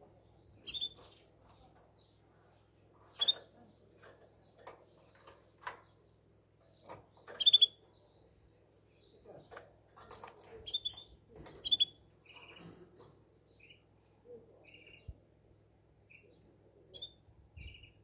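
Caged canary giving short, sharp chirp calls every few seconds, the loudest about halfway through, then a run of short, softer repeated call notes near the end. These are calls, not full song.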